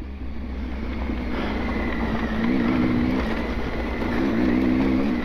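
Adventure motorcycle riding on a rough dirt trail, its engine running steadily under a low rumble, with the engine note wavering up and down twice in the second half.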